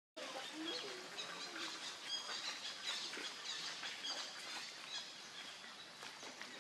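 Outdoor forest ambience with many birds chirping in short, high calls throughout, and a brief low gliding call about half a second in.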